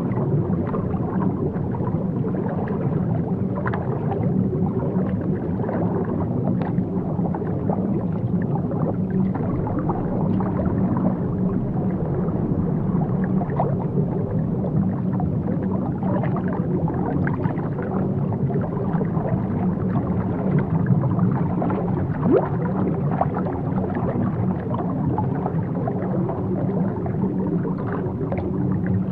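Underwater ambience: a steady, muffled low rumble of water, with scattered faint clicks and crackles throughout.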